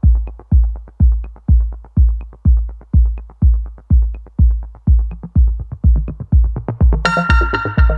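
Electronic background music with a heavy kick drum about twice a second and light ticking hi-hats; a bright synth chord comes in near the end.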